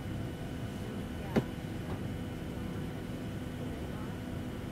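Commercial airliner cabin during deboarding: a steady low hum with faint passenger voices, and a single sharp clack about a second and a half in.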